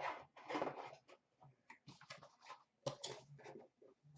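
Trading cards being handled and set down on a glass display counter: an irregular run of short rustles and taps, loudest in the first second.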